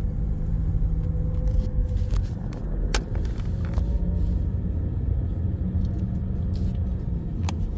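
Car driving on a road: a steady low rumble of engine and tyres, with a couple of light clicks.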